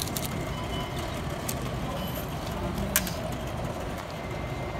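Steady background noise of a busy supermarket, with one sharp click about three seconds in.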